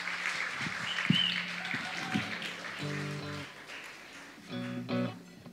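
Audience applause dying away, with a few soft knocks, then a couple of short chords played on the band's instruments between songs.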